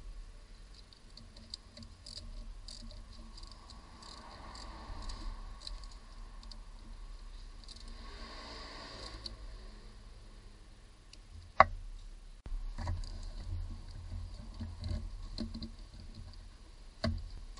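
Hand ratchet wrench clicking as it turns a starter motor bolt, with runs of quick ratchet clicks and scattered taps of tools and parts being handled. One sharp, louder knock comes about two-thirds of the way through.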